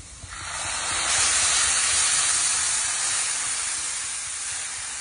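White wine poured onto toasted rice and cuttlefish in a hot pan, sizzling and hissing as it hits: the deglazing ('sfumare') step of a risotto. The sizzle starts a fraction of a second in, builds over about a second, then slowly eases off as the wine boils away.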